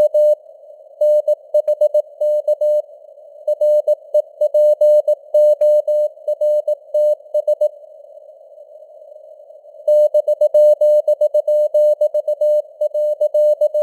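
Morse code (CW) sent at 18 words per minute: a single steady tone keyed on and off in dots and dashes over the hiss of simulated radio band noise. The keying stops for about two seconds midway, leaving only the hiss, then resumes.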